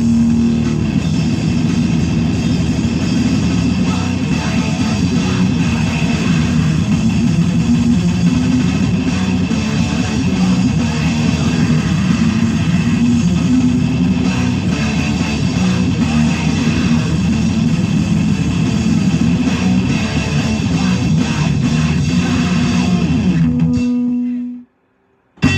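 Loud rock music with guitar and bass playing continuously. It fades and stops near the end, leaving about a second of silence between songs, and then the next song starts.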